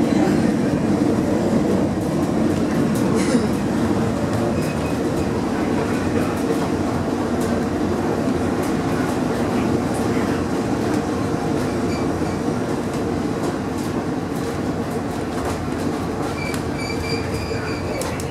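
Tram car running along the rails, heard from inside the passenger compartment: a steady rumble and rattle with faint clicks of the wheels, and a brief high wheel squeal near the end.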